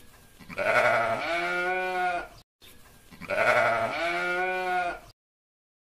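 A sheep bleating. The same long bleat is played twice, about two and a half seconds apart.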